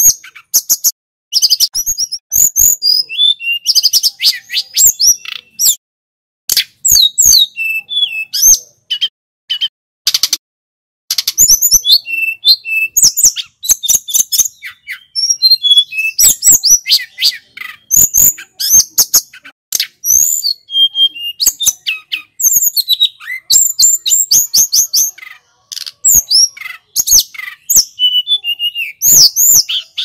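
Caged tledekan gunung, a blue flycatcher, singing loud, rapid, high-pitched warbled phrases of varied chirps and trills, with a few short pauses.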